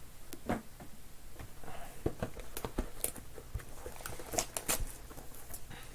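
Cardboard trading-card boxes and wrapped card packs being handled and opened by hand: scattered light taps, clicks and crinkles.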